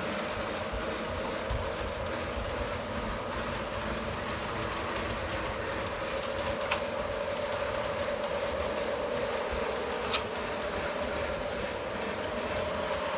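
Lionel model train running on its track: a steady electric-motor hum with wheels rolling over the rails, and two sharp clicks, about three and a half seconds apart, as it crosses rail joints.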